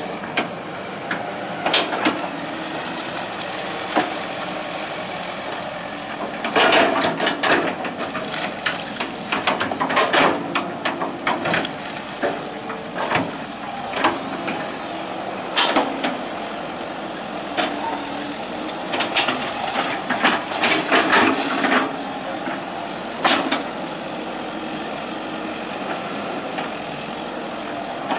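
Hitachi EX120 hydraulic excavator's diesel engine running steadily under work, with repeated metallic clanks and knocks from the machine at irregular intervals, in clusters.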